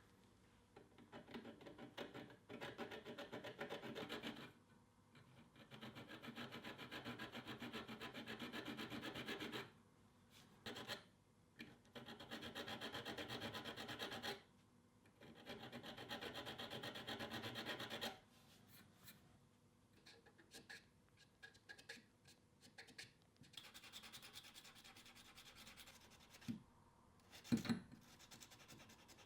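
Steel being hand-filed in four spells of quick scraping strokes, each a few seconds long. Light ticks and a single knock follow near the end.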